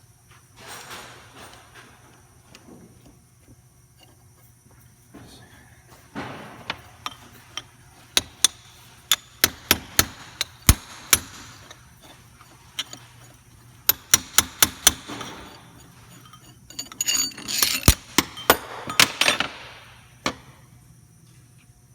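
A hammer striking metal in quick runs of sharp, ringing taps, about two to three a second, with rougher scraping and knocking between some runs.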